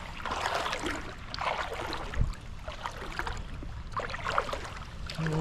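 Creek water rushing and splashing, with irregular louder splashes about once a second over a low rumble.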